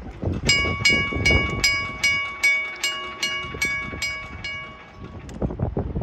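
Railroad crossing signal bell ringing in quick, even strikes, about three a second, then stopping after about four seconds.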